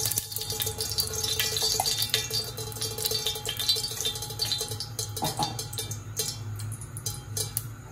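Cooking oil heating in a stainless steel pot on the stove, with scattered small crackles and pops over a steady low hum.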